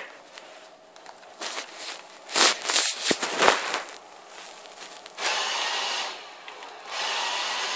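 A few knocks and rubbing noises from handling, then a robot vacuum's motor running with a steady whoosh from about five seconds in. The whoosh stops for a moment and starts again near the end.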